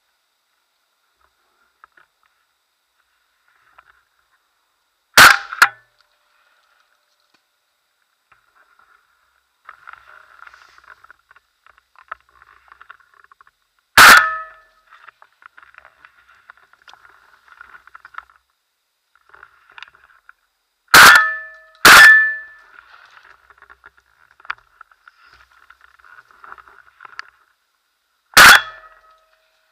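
Five shotgun shots: one about five seconds in, one near the middle, a quick pair under a second apart about two-thirds of the way through, and one near the end. Faint scratchy noise runs between them.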